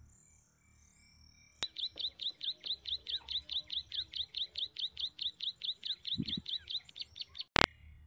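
Ciblek sawah (prinia) call: a fast, even string of sharp downward chirps, about five a second, held for some six seconds. It starts with a click about a second and a half in and ends with a loud pop near the end.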